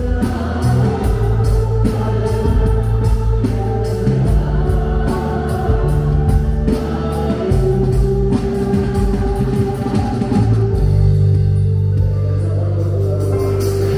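Music with guitar and drum kit: held low bass notes that change every second or two under guitar chords and a steady drum beat.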